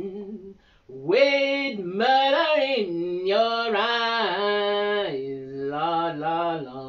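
Unaccompanied blues singing: a woman's voice holding long notes that slide up and down, dropping to a lower pitch about five seconds in.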